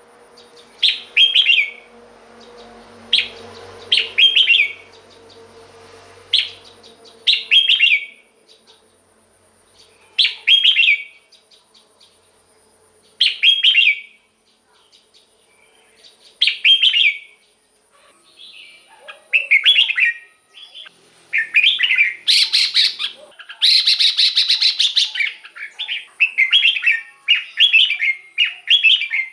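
Red-whiskered bulbul singing short, bright, warbling phrases about every three seconds. From about two-thirds of the way through, the song becomes louder, faster and nearly continuous.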